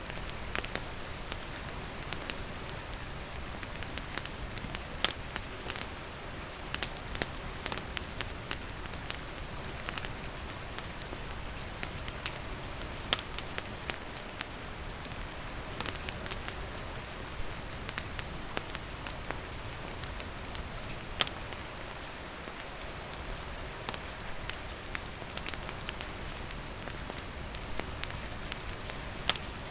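Steady rain falling, with a wood campfire crackling through it in frequent sharp, irregular pops.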